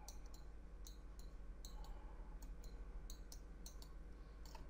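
Faint computer mouse clicks, about a dozen at irregular intervals, over a low steady hum.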